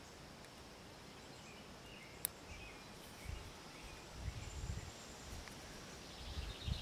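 Faint outdoor background with faint bird chirps. A single sharp click comes about two seconds in, and soft low handling bumps follow in the second half.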